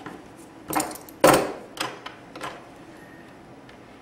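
Hand wire strippers clicking as they strip about an eighth of an inch of insulation off a wire: four sharp clicks, the loudest about a second and a quarter in.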